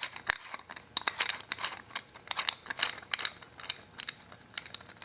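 Socket ratchet clicking in quick irregular runs as the 22 mm nut holding the fuel door lock is unscrewed, with small metal clinks.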